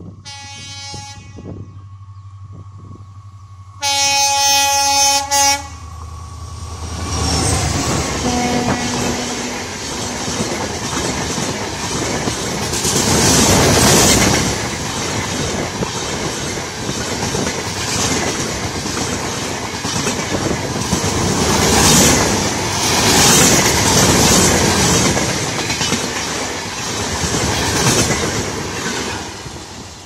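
A WDP-4D diesel locomotive approaching with the low drone of its EMD two-stroke engine, sounding a brief horn toot and then a louder blast of about a second and a half, about four seconds in. It passes, and its coaches rush by with a loud clickety-clack of wheels over the rail joints, swelling several times and fading near the end as the train pulls away.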